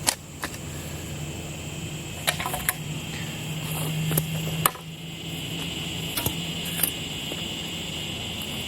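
Scattered sharp knocks and thuds of soil being poked down and packed around a freshly set wooden post, about half a dozen at irregular intervals, over a steady low hum and a steady high-pitched tone.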